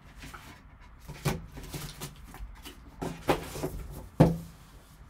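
Cardboard card boxes being handled and set down on a table: a few short knocks and taps, the loudest a sharp knock about four seconds in.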